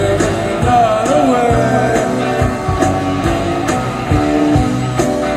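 Rock music with singing and guitar over a steady drum beat.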